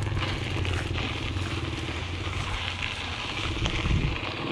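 Mountain bike tyres rolling over dry, sandy dirt, with a steady crunching crackle of grit under the tread and a steady low hum underneath.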